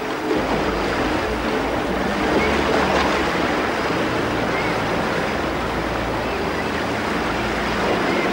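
Waterfall rushing steadily, with a low steady hum underneath.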